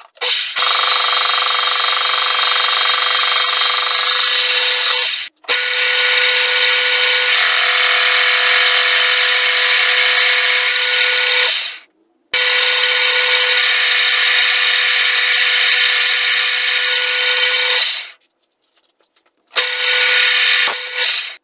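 Metal lathe turning a large metal disc held in the chuck, with the tool cutting to make a thick ring: a loud, steady, high-pitched machining noise with a constant whine. It cuts off abruptly and resumes about 5 and 12 seconds in, and again near the end.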